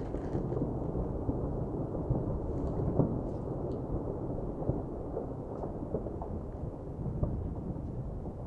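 Sakurajima's eruption column giving off a deep, continuous rumble, broken by scattered sharp cracks; the loudest crack comes about three seconds in.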